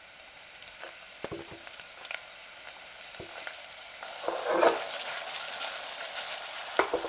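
Chopped red onion tipped into hot oil in a stainless steel saucepan, the oil sizzling, with a few short knocks as pieces and the wooden board hit the pan. The sizzle grows louder about four seconds in as most of the onion lands in the oil.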